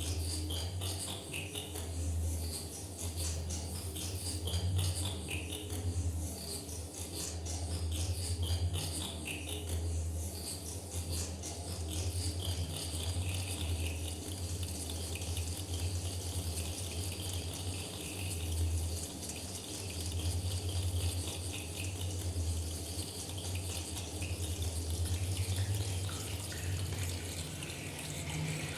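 Experimental sound-art performance: a steady low drone that wavers in strength under a dense, crackling hiss.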